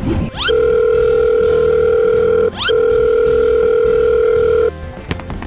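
Two long, steady electronic beeps, about two seconds each with a short break between, each starting with a quick rising chirp.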